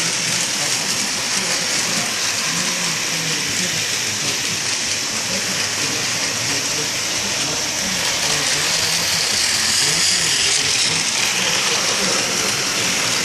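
Battery-powered Plarail toy train's small electric motor and plastic gearbox whirring steadily as it runs after repair, a little louder from about eight seconds in.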